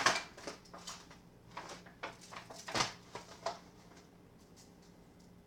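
Hands rubbing seasoning into raw pork spare ribs: a string of short, soft rubbing and slapping noises over the first few seconds, then they stop.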